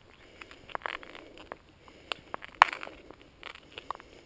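Footsteps: a series of irregular scuffs and sharp clicks, the loudest about two and a half seconds in.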